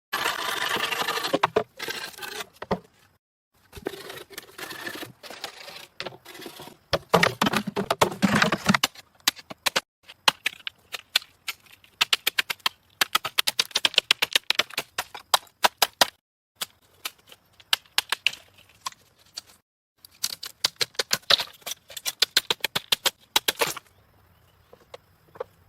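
Scraping and rustling, then long rapid runs of sharp clicks and taps in bursts with short pauses, stopping shortly before the end.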